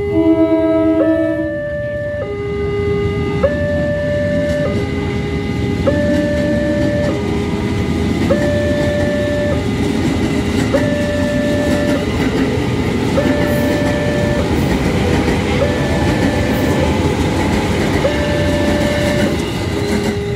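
Level-crossing warning alarm sounding a two-tone electronic chime that switches pitch about every second, over the rumble and wheel clatter of a passing KRL commuter train, an ex-JR 205 series electric multiple unit.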